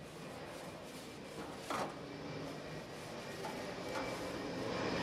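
Oil-soaked rag gripped in metal tongs wiping and scraping along hot gas-grill grates, with one sharper scrape about two seconds in, over a steady hiss.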